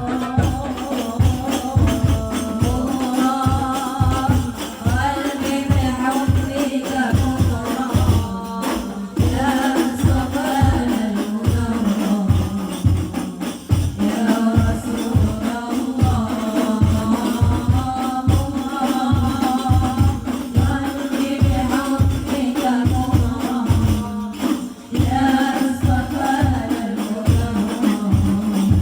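Music with a steady drum beat of about two to three hits a second, tambourine-like jingles and a sustained melody line, briefly dropping out twice.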